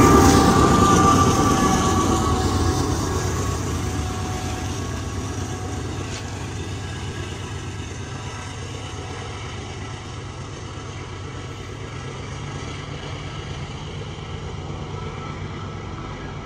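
Canadian Pacific GE AC4400CW diesel-electric locomotive, the rear distributed-power unit of a coal train, passing close by and then moving away. Its engine and its wheels on the rails fade over several seconds to a steady low rumble.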